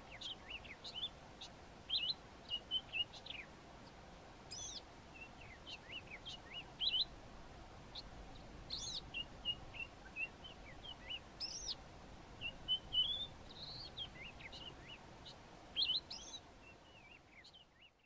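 A juvenile white-browed scrub robin singing practice song: scattered short whistled notes and brief jumbled phrases with pauses between them. It is copying its parents' song and the call of a sombre greenbul.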